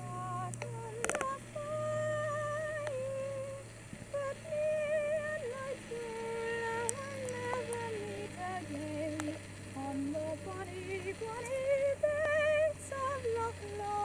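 A woman singing unaccompanied, a slow melody of long held notes with vibrato, over a steady low hum of DJI Osmo gimbal noise picked up by the Osmo's internal microphone.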